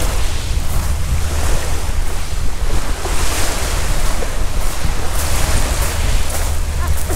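Sea waves washing ashore, their hiss swelling and fading every few seconds, over a steady low rumble of wind buffeting the microphone.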